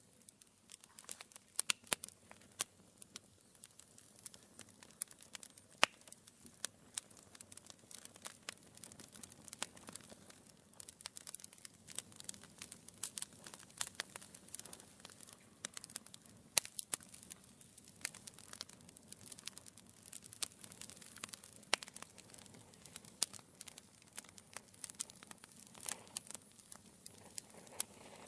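Wood fire burning in a fireplace, logs crackling and popping in quick irregular snaps over a faint hiss.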